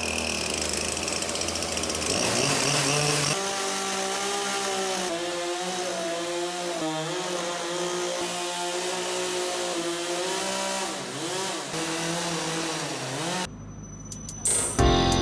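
Sawmill running on a large oak log, its engine note dipping a few times as it works. Near the end the machine sound drops away.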